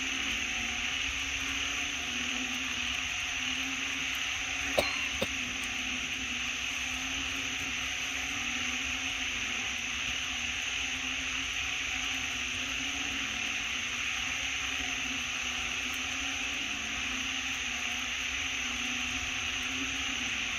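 Steady hissing outdoor background noise, with two sharp clicks close together about five seconds in.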